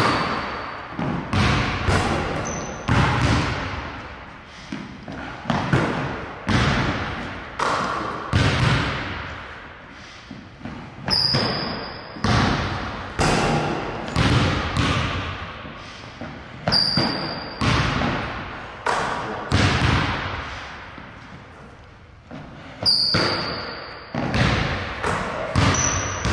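Basketball bouncing on a hardwood court and banging off the rim and backboard during a shooting drill, a hit every one to two seconds, each echoing through the large, empty gym. Short, high sneaker squeaks on the polished floor come in now and then.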